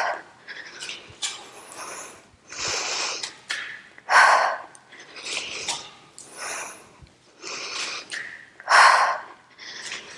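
A woman breathing hard under exertion. Forceful exhalations come about every four to five seconds, with quieter breaths in between.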